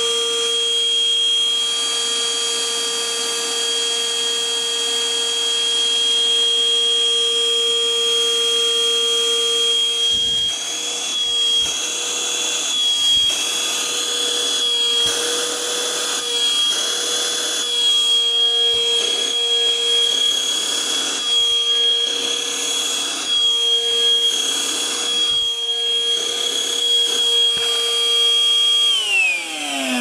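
NOVETE cordless handheld wet-and-dry vacuum's motor running with a steady high whine as it sucks up small debris from a carpet. From about ten seconds in, the pitch wavers and short bursts of noise come through as bits are picked up. Near the end it is switched off and the whine falls away as the motor winds down.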